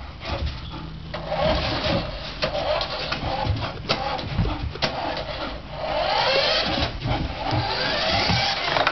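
Electric motor of a radio-controlled toy car whining in bursts, its pitch rising and falling as it speeds up and slows down, with a few sharp clicks.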